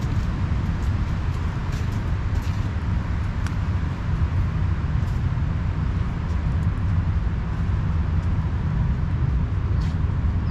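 A steady low rumble of road traffic, with faint, sharp, scattered clicks of a cat crunching dry kibble.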